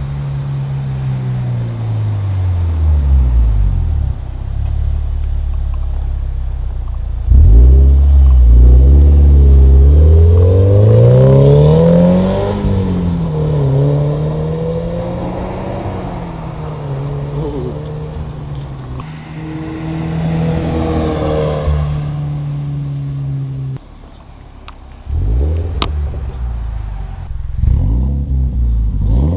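Scion FR-S / Toyota GT86 2.0-litre flat-four boxer engine on its first start through a freshly installed Perrin aftermarket exhaust, loud, with the revs blipped up and down repeatedly over an idle. It is loudest about seven seconds in, and the note dips briefly near the end before the revving resumes.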